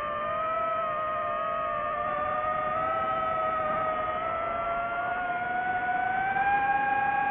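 DJI FPV quadcopter's motors and Master Airscrew propellers whining in flight, a steady buzzing tone whose pitch climbs slowly as the drone speeds up, slightly louder near the end.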